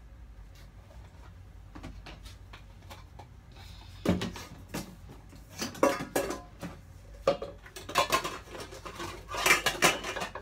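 Dishes and kitchenware clinking and clattering as they are handled and packed: a few faint clicks at first, then a run of sharp clatters from about four seconds in, getting busier and loudest near the end.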